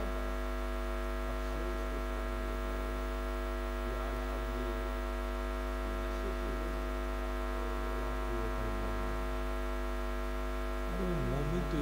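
Steady electrical mains hum and buzz from the sound system's microphone and loudspeaker chain, a stack of unchanging tones, with faint voices beneath it.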